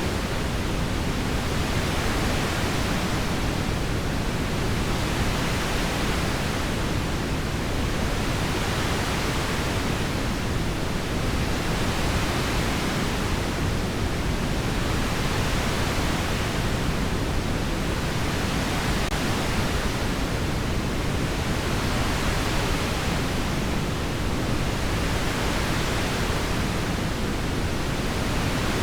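Steady heavy rain, an even dense hiss whose upper part swells gently about every three to four seconds.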